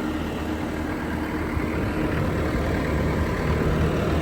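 2018 Bobcat T630 compact track loader's four-cylinder diesel engine idling steadily.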